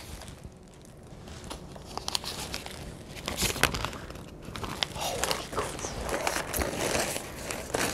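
Packing paper rustling and crinkling as it is peeled back from a wrapped plant, with many scattered sharp crackles, busier in the second half.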